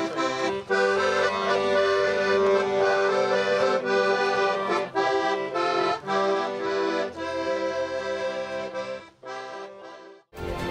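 Piano accordion playing a tune in held chords with bass notes under the melody. It fades out in the last couple of seconds, and other music starts just before the end.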